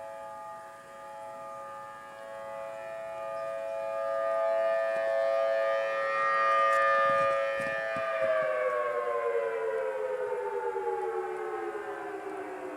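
Civil defense tsunami warning siren sounding a steady chord-like tone that swells louder and fades as it goes, then winds down, its pitch gliding steadily lower from about eight seconds in.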